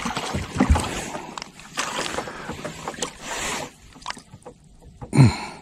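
Knocks and clatter of handling on a small fishing boat, with a brief hiss about three seconds in.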